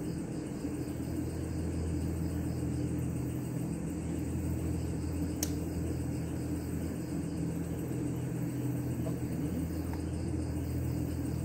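A steady low mechanical hum made of several constant tones, with a single sharp click about five seconds in.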